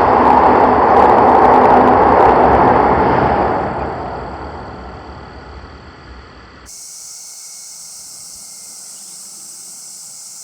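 A train passing a railway level crossing, its loud rumbling noise fading away over a few seconds as it goes by. About two-thirds of the way through, the sound cuts abruptly to a quieter steady high hiss.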